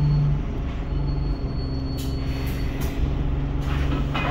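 Inside a moving Alexander Dennis Enviro 200 single-deck bus: the diesel engine's low hum over road rumble, with the note dropping away and coming back. There are light rattles about two seconds in and a louder rattle near the end.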